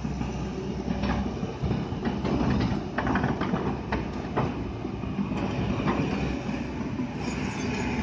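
Kobelco hydraulic excavator's diesel engine running steadily as the machine swings and dumps a bucket of soil and rock into a steel dump-truck bed. Loose knocks and clatter of material hitting the bed come in a cluster about three to four and a half seconds in, with another knock near six seconds.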